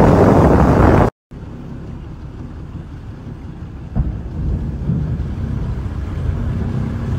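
Small boat's outboard motor running, with wind buffeting the microphone. The sound cuts out briefly about a second in and returns quieter, the motor still running, with a single knock about four seconds in.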